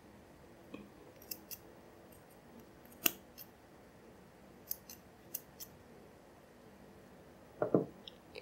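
Small scissors snipping the ends of a cotton yarn tassel to trim it even: a series of short, sharp snips, the loudest about three seconds in. A duller knock comes near the end.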